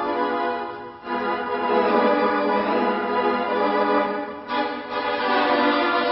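Organ music playing sustained chords, with brief dips in level about a second in and again about four and a half seconds in.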